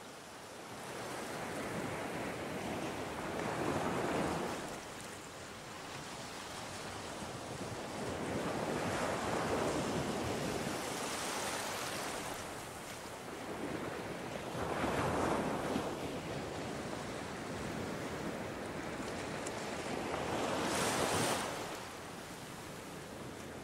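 Ocean surf: waves washing in on a beach in several swells, each rising to a hiss as it breaks and then falling away.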